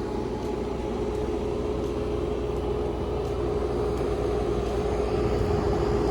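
Bobcat 337 mini excavator's diesel engine running steadily, with a constant whine over a low rumble.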